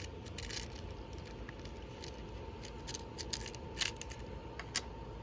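Small craft charms being handled, giving scattered light clicks and rustles over a faint steady hum.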